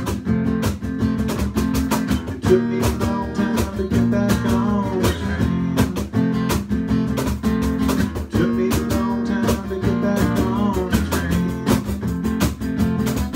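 Acoustic guitar strummed in a steady rhythm: an instrumental passage between sung lines of a folk song.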